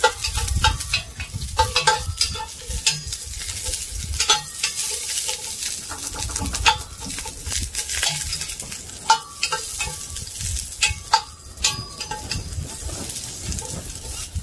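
Onions sizzling in a hot Dutch oven while a utensil stirs them, with many sharp clicks and scrapes against the pot. Wind rumbles on the microphone underneath.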